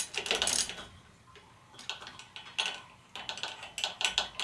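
Ratchet handle clicking in short runs as a long hex socket on an extension spins out the loosened 5 mm hex bolt at the bottom of a suspension fork leg. The bolt turns freely. There is a pause of about a second soon after the start, then the clicking picks up and is densest near the end.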